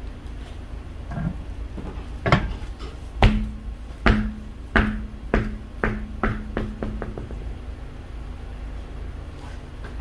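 A metal part drops with a clank and bounces, its hits coming faster and faster until it settles, with a low metallic ring that lasts throughout.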